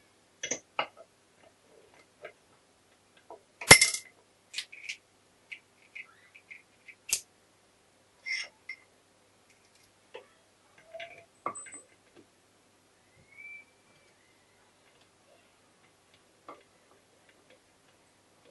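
Irregular metallic clicks and clinks of small gearbox parts and hand tools being handled, with one louder clank about four seconds in.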